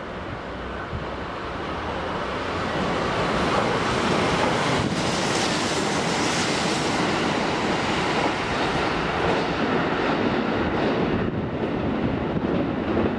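Kintetsu limited express passing through the station at speed on the adjacent track: a rush of wheel and rail noise that builds, stays loud for several seconds, then fades as the train clears the platform.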